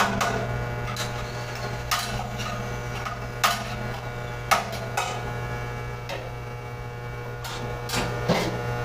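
Steady electrical mains hum, with sharp clicks and knocks every second or so from hand work on an electrical panel's metal parts.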